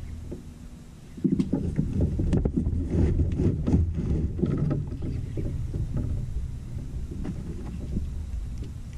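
Bumping, rubbing and clicking from a Hobie fishing kayak and its gear as the angler shifts his weight and works a bent rod. It starts about a second in, is loudest for the next few seconds, then eases to a low rumble.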